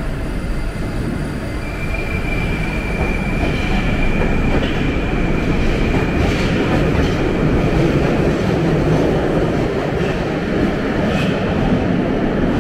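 Moscow Metro train pulling out of the station and running away down the tunnel, its wheels and motors making a steady rumble that grows louder about two seconds in. A high steady whine sounds for a few seconds after it starts moving, and a couple of sharp clacks come from the wheels passing over the rails.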